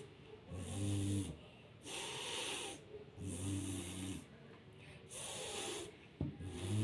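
Slow, rhythmic snoring: about every three seconds a hissing breath is followed by a low, buzzing snore.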